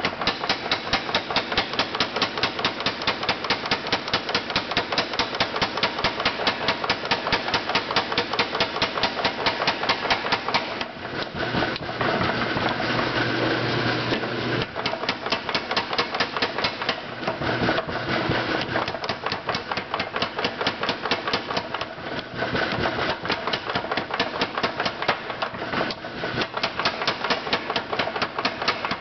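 50 lb Moloch power hammer forging a red-hot round bar: the ram strikes the hot steel in a rapid, even rhythm of several blows a second. In two stretches around the middle the blows turn lighter and blur into a continuous clatter.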